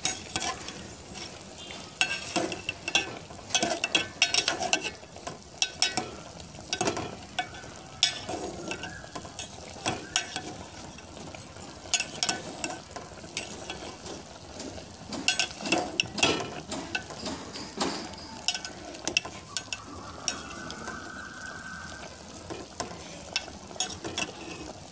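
Slotted metal spoon stirring boiled chicken pieces in an aluminium pot, with irregular scrapes and clinks against the pot over a low hiss from the hot liquid.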